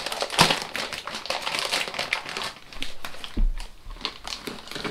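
Plastic packaging crinkling and rustling, with many small irregular clicks and taps as a transducer skin fitting is unpacked and handled. A dull low bump comes about three and a half seconds in.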